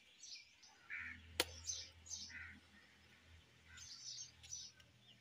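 Birds chirping in short, scattered calls, with one sharp click about a second and a half in.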